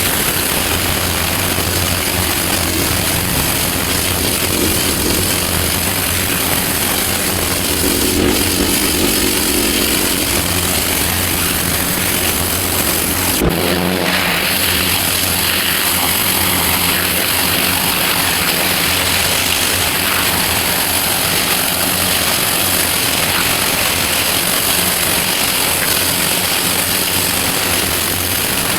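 Pressure washer engine running steadily under the hiss of the high-pressure water jet. The engine's low note changes abruptly about halfway through.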